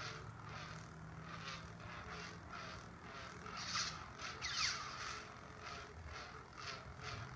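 Black Series Obi-Wan Kenobi (Episode III) electronic toy lightsaber humming with a low steady tone, with louder swing sounds and a falling swoosh a little past the middle as the blade is waved. A rhythmic hiss pulses about twice a second throughout.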